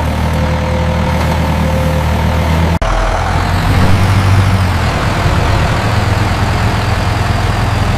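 Heavy vehicle engine running steadily under load in low gear. Almost three seconds in, the sound breaks off for an instant and comes back a little louder.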